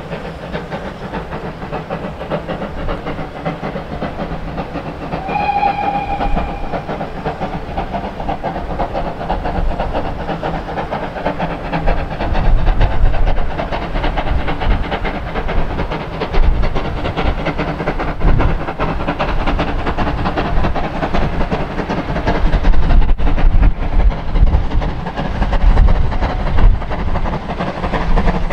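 Steam locomotive with its train running, a steady rush of hissing and rail noise. It gives one short whistle blast about five seconds in. About halfway through, the heavy rumble and clatter grow louder as the train comes closer.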